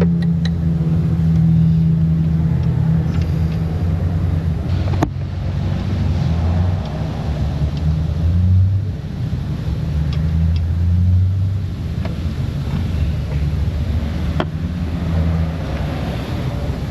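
Kia Soul's engine idling steadily in the shop, with a low, slightly wavering hum. Two sharp clicks, about five seconds in and near the end.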